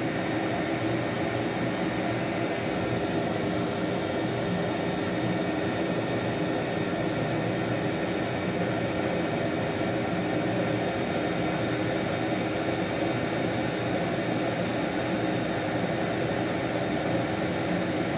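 A fan-driven machine running with a steady whirring hum, with a few constant tones in it and no change in level.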